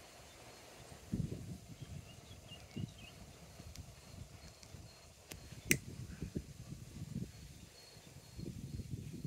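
Faint outdoor ambience with irregular low rumbles on the microphone and one sharp click a little past the middle.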